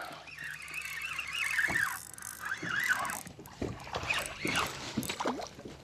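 A high squeal that wavers up and down, with several short splashes about two thirds of the way through as a hooked crappie thrashes at the surface while being reeled in.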